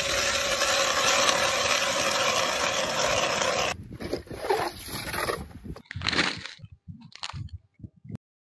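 Hand ice auger's steel blades grinding down through the ice, a loud, steady scraping crunch for about three and a half seconds, then broken, uneven scraping and a few short crunches, cutting off just before the end.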